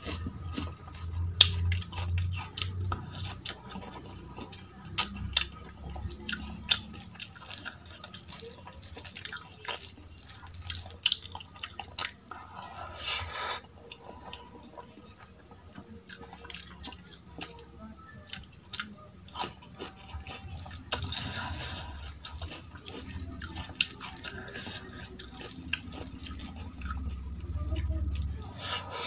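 Close-up wet eating sounds of rice and dal fry eaten by hand: fingers squishing the rice into the dal, and chewing with many small wet clicks and lip smacks.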